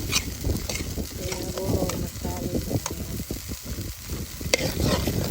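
Curry powder and ground spices sizzling in hot oil in a pot while a spoon stirs and scrapes the bottom, with short scraping clicks throughout. This is the Caribbean 'burning the curry' step, frying the spice paste before the meat goes in.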